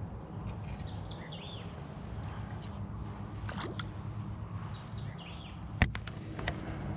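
Steady low rumble of wind on the microphone, with a few short bird chirps and one sharp click near the end.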